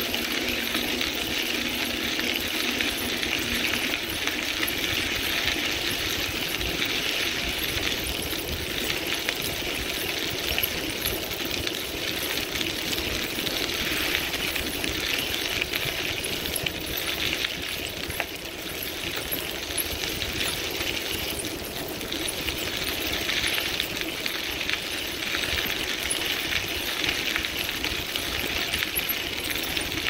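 Bicycle tyres rolling at speed over a crushed-stone rail-trail surface: a steady gritty crunch and rattle, easing briefly about two-thirds of the way through, over a choppy low rumble of wind on the microphone.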